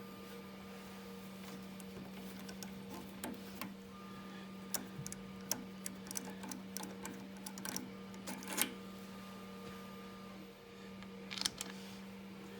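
A 1/4-inch tap cutting threads in a small aluminium part on a lathe: scattered light clicks and ticks over a steady low machine hum, with a faint whine that comes and goes.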